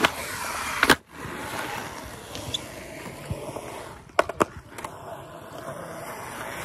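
Skateboard wheels rolling on concrete with a steady rolling rumble. There are sharp clacks from the board, one loud about a second in and a few more around four seconds in.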